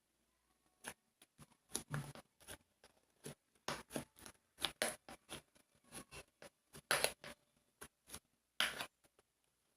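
Slime being played with, making irregular short clicks and pops with quiet gaps between them, a few louder ones in the second half.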